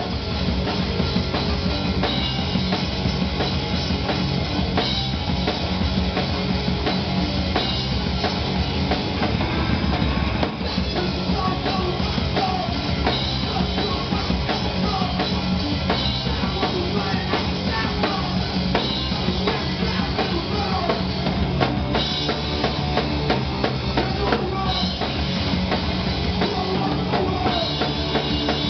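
A rock band playing live and loud: a full drum kit with bass drum and cymbals, electric guitar through Marshall amplifiers, and a singer on the microphone.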